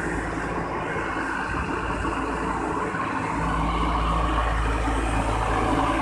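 Diesel engine of an asphalt paving machine running steadily up close, its low hum growing louder a little past halfway.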